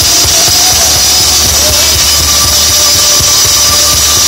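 Live Christian rock band playing loudly: drum kit and electric guitars, with a long steady held note coming in about two seconds in.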